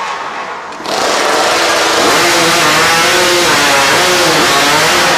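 Modified two-stroke competition chainsaw running, dropping back briefly at the start, then throttled up about a second in and running hard at full revs as it cuts timber, its pitch wavering under load.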